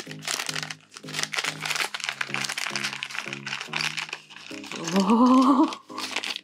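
Plastic LEGO minifigure blind bag crinkling as it is torn open and the pieces are shaken out, over background music with a steady beat of low notes. About five seconds in, a short wavering voice sound rises above it, the loudest moment.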